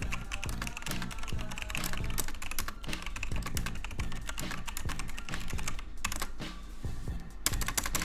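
Fast typing on a computer keyboard: a dense, continuous run of key clicks with a few short pauses.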